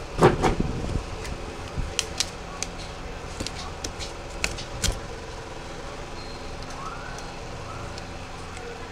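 Sharp plastic clicks and snaps from a Nokia 206 mobile phone's casing as its back cover is pried off, several in the first five seconds, the loudest right at the start. A steady low hum runs underneath.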